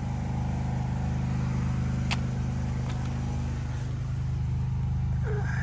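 Pressure washer running steadily, a constant low engine drone with a hiss above it. A couple of faint clicks come about two and three seconds in.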